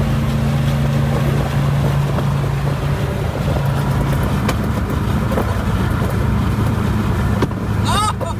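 A car running steadily, a low engine hum with road noise. A brief high squeak glides up and down near the end.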